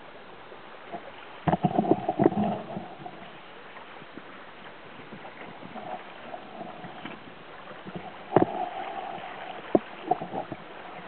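Water rushing and splashing along the hull of a small Goat Island Skiff sailing under way, a steady wash with a few sharp knocks from the boat, a cluster about a second and a half in and single knocks near the end.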